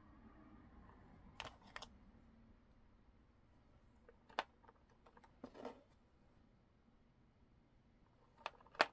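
Faint, scattered clicks and taps of small beads and beading tools being handled, about six in all with long quiet gaps, the loudest just before the end.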